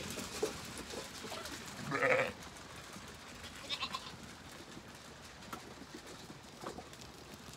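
Zwartbles sheep at the feed troughs: one loud bleat about two seconds in, then a shorter, higher call a couple of seconds later, over a scatter of small clicks and shuffling from the flock.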